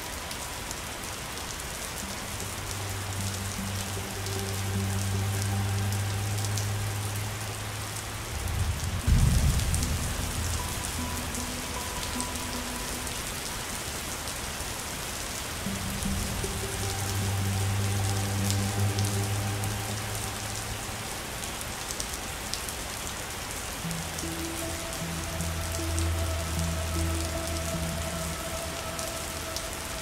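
Steady rain hissing and pattering, with soft background music of low held notes underneath. About nine seconds in, a brief low rumble is the loudest sound.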